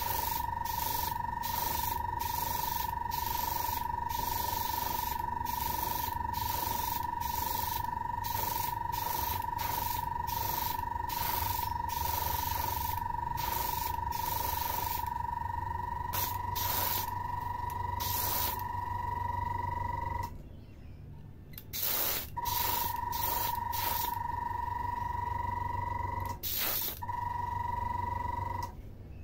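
Small handheld electric sprayer with a glass jar misting a thinned epoxy clear coat: a steady motor whine with short hissing puffs of spray about twice a second. The motor stops about twenty seconds in, starts again a couple of seconds later, and cuts out briefly once more near the end.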